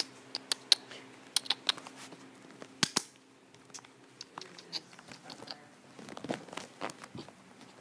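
Irregular light clicks and taps with some rustling, and two sharper knocks close together about three seconds in.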